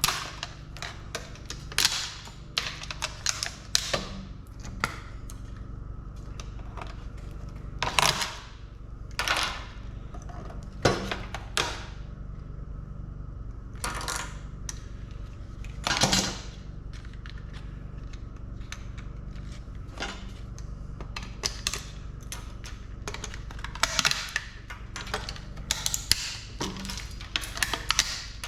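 Irregular clicks, clinks and knocks of metal parts and hardware being handled and worked loose while a steel equipment control panel is dismantled, with a few louder clanks, over a steady low hum.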